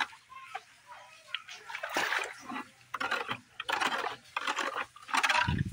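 Shallow rainwater pooled on a flat roof splashing and sloshing as it is disturbed, in several short bursts, the last with a dull thud near the end.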